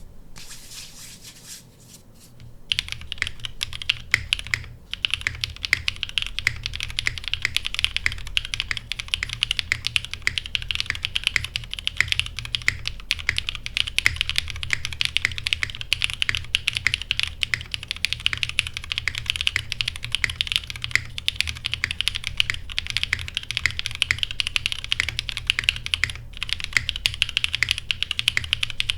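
Fast, continuous typing on a TGR x Monokei 910 ME mechanical keyboard, a top-mount board with a polycarbonate plate, lubed BCP frankenswitches (Cherry top, Cream stem, Gateron X bottom) and GMK keycaps. It is a dense run of key clacks that starts about two and a half seconds in.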